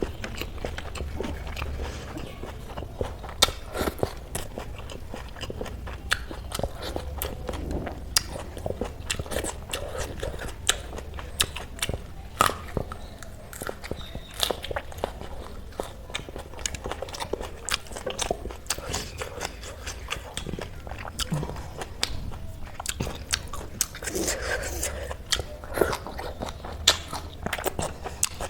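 Close-miked eating sounds: a person chewing and crunching food, with many short crisp crunches over a steady low hum.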